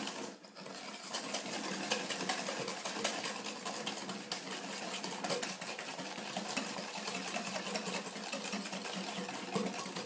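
Wire whisk beating egg and sugar in a glass bowl until pale: fast, steady clicking and scraping of the wires against the glass.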